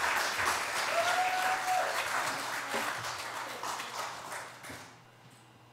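Congregation applauding, with a voice or two over the clapping; the applause dies away about five seconds in.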